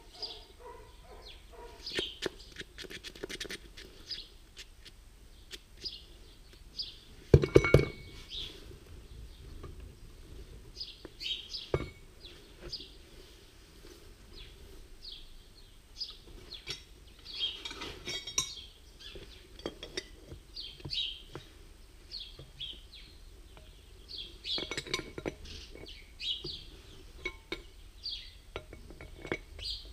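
Metal clinks and knocks from a tractor's oil-centrifuge rotor being handled and worked with a wrench. The loudest is a short burst of clanks about seven seconds in. Birds chirp throughout.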